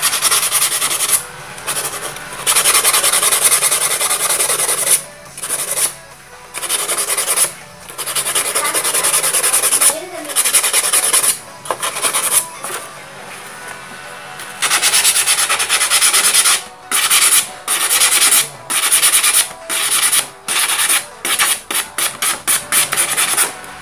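Sandpaper worked by hand over a small part to smooth off its sharp edges: dry rasping strokes in long runs, then short quick strokes of about two or three a second near the end.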